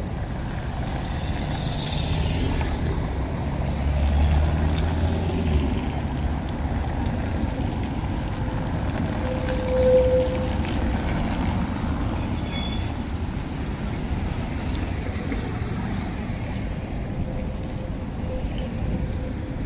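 City street traffic with vehicles passing, including a low engine rumble in the first few seconds.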